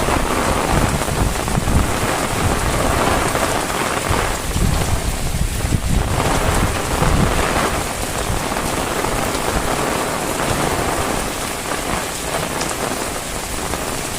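Heavy rain falling steadily, with a low rumble underneath that swells and fades.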